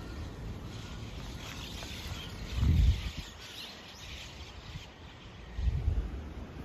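A large flock of small birds calling all at once, a dense, high chatter through the first two-thirds. Wind buffets the microphone in two loud gusts, about three seconds in and again near the end.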